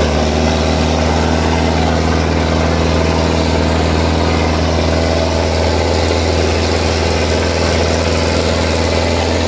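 Sonalika DI 750 III tractor's diesel engine running steadily under heavy load as it drags a disc harrow through ploughed soil, a constant low drone with no change in pace.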